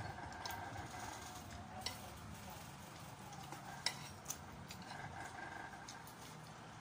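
Faint clinks of utensils against dishes: a few short, sharp ticks over a low, steady hiss.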